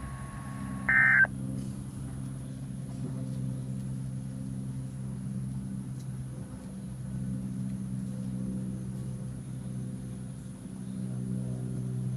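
A short burst of EAS digital data tones about a second in, typical of the end-of-message signal that closes a NOAA Weather Radio warning. After it comes a low, steady hum that swells and fades slowly.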